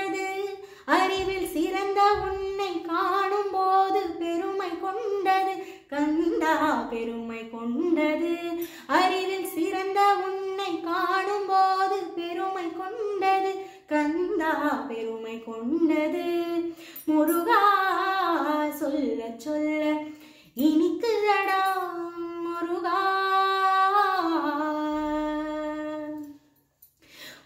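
A woman singing solo, a Tamil devotional song to Muruga, with long held notes and sliding, ornamented pitch. She pauses briefly between phrases and breaks off for a moment near the end.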